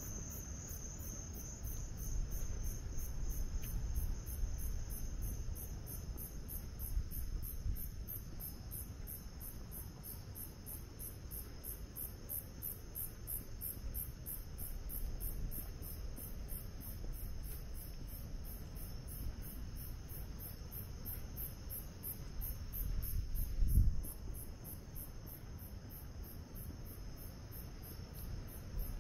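A chorus of night-singing insects: steady, evenly pulsed high-pitched chirping over a fainter continuous trill. A low rumble lies underneath, swelling briefly a few seconds before the end.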